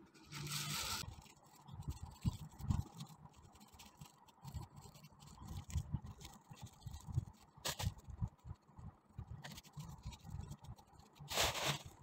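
Thin plastic bags crinkling and rustling as they are handled and scrunched by hand, in a few short bursts: just after the start, around the middle and near the end. Soft knocks of handling come in between.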